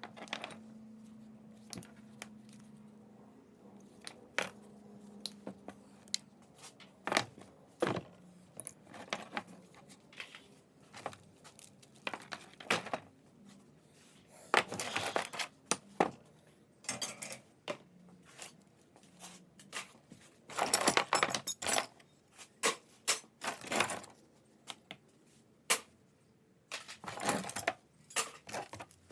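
Small pieces of scrap metal clinking and clattering as they are handled and dropped one after another into buckets, with a busier burst of clatter about two thirds of the way in.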